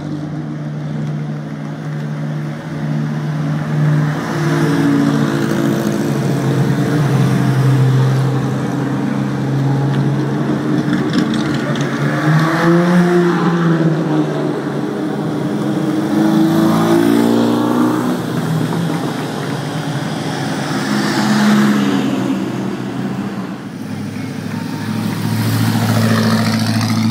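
Classic racing car engines running, with their pitch rising and falling several times as cars are revved or pull past.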